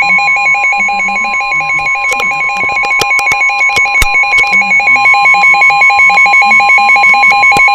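Weather radio alerting for a severe thunderstorm warning: the receiver's alarm beeping rapidly in two pitches, joined by the NOAA Weather Radio warning alarm tone, a steady high tone that sounds the whole time and signals that a warning message is about to be read.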